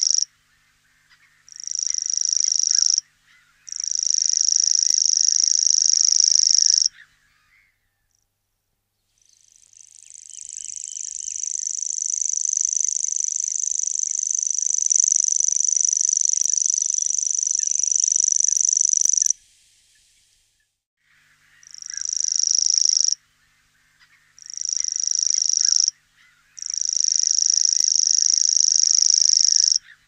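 Common grasshopper warbler reeling: a high, even, unbroken reel held for several seconds at a time. Several shorter reels are separated by brief pauses, and one long reel of about ten seconds swells in gradually.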